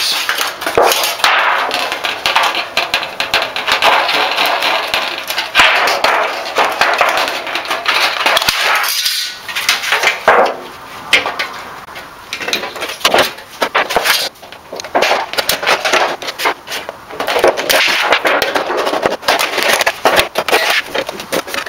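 Aviation tin snips cutting thin aluminium flashing: a run of irregular sharp snips from the blades, mixed with the crinkling rattle of the flexible metal sheet as it is twisted and handled. There are short pauses between cuts.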